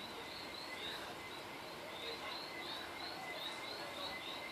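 Faint short high chirps repeating about twice a second over a steady hiss.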